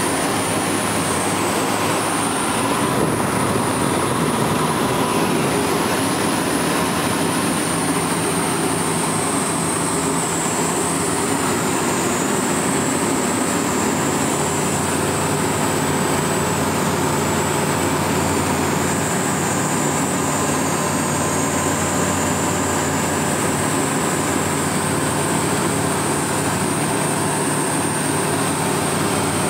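Dynamic WT9 ultralight's engine and propeller running steadily in flight, heard from inside the cockpit, with a thin high whine on top.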